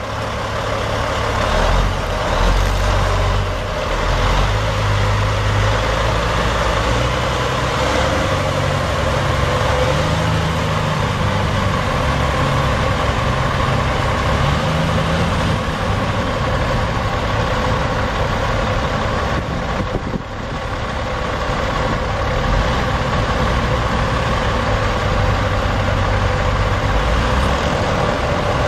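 Caterpillar C12 inline-six turbo diesel in a Freightliner Century Class semi truck, idling steadily.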